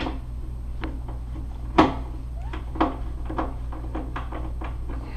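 Bathroom vanity cabinet door on concealed European hinges being worked and adjusted: a string of light clicks and knocks, the loudest about two seconds in, over a steady low hum. The door is still out of alignment, its hinge pivot set too far off.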